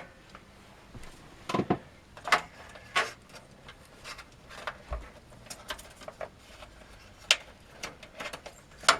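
Scattered clicks, taps and rustles of a power cable being handled and pushed through a desktop PC case, with several sharper knocks spread through.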